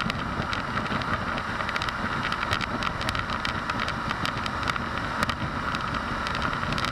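Suzuki V-Strom 1050XT's 1037 cc V-twin running steadily at road speed, heard from the handlebars with wind rushing over the microphone.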